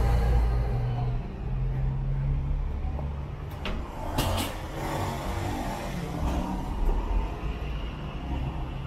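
City street traffic: a passing vehicle's engine rumble, loudest at the start and easing after about a second, then lighter traffic noise with a few sharp clicks about four seconds in.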